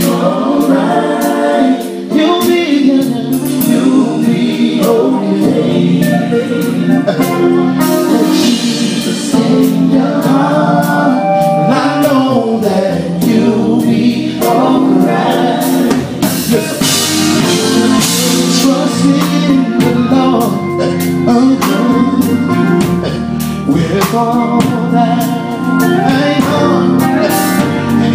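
A men's gospel vocal group singing into microphones, backed by a live band with drum kit and keyboard.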